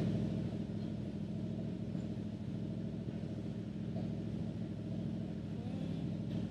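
1976 Chevy C65 log truck's engine idling steadily.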